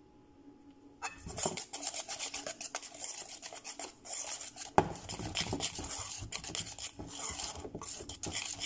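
Pancake batter being stirred briskly in a metal mixing bowl: a metal spoon scraping and clicking against the bowl's sides, starting about a second in, with one louder knock about halfway through.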